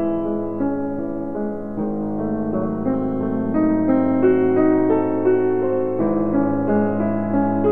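Background piano music: single notes changing about once a second over held chords.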